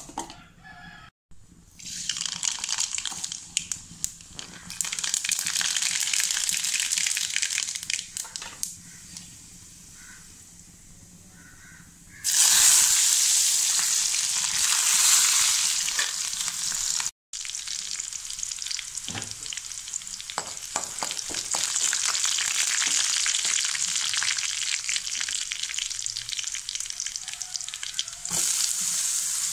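Hot oil sizzling and crackling in an aluminium kadai, with a sudden louder sizzle about twelve seconds in. Near the end, chopped shallots, green chillies and curry leaves are frying in the oil. The sound cuts out for an instant twice.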